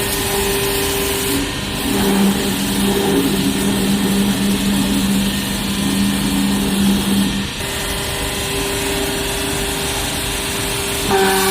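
Hydraulic baler's power unit (electric motor and hydraulic pump) running with a steady hum over a broad mechanical noise, its tone shifting about a second and a half in and again about seven and a half seconds in.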